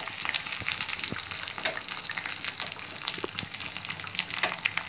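Spices and whole dried red chillies sizzling and crackling in hot desi ghee in a small tempering pan, with many sharp pops, while a spoon stirs them.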